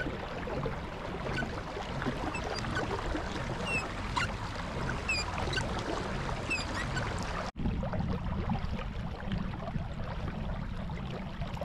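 Kayak moving over open water: steady water and hull noise under a low rumble, with short high chirps scattered through the first half and a brief break about seven and a half seconds in.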